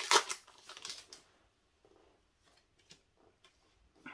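Foil booster-pack wrapper torn and crinkled open, loudest in about the first second, then faint rustles and small clicks as the cards are slid out and handled.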